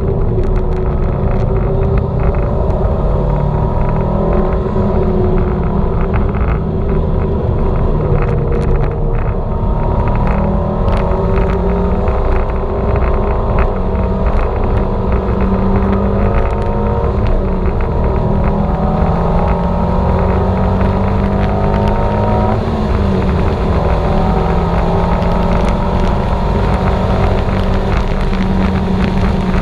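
Turbocharged Subaru Forester XT engine pulling hard on track, its pitch climbing slowly with speed and dropping sharply about 22 seconds in, with wind noise.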